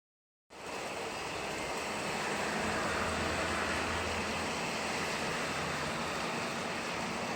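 Heavy rain pouring steadily, a dense even hiss that starts about half a second in, with a faint low hum underneath through the middle.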